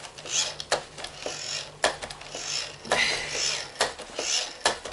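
Paper towel rubbing over a Roomba's wheel in repeated swipes, about one a second, with sharp clicks in between.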